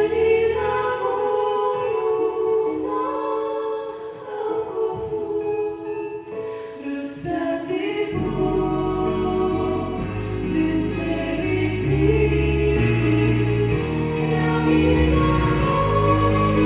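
A small group of women singing a Russian Christian song together with accompaniment; low bass notes come in about eight seconds in.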